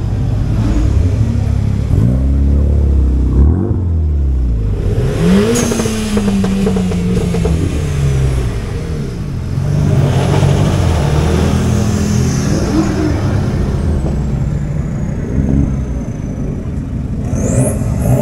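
Sports car engines revving and accelerating. The engine note climbs and falls several times, with a sharp climb about five seconds in that then slowly falls away.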